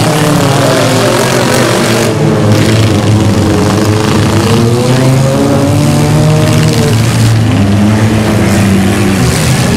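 Several race cars' engines running together, each revving up and easing off as they accelerate and lift around the course.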